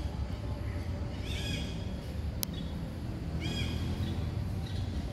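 Short animal calls, one about a second and a half in and another about three and a half seconds in, over a steady low rumble, with a single sharp click between them.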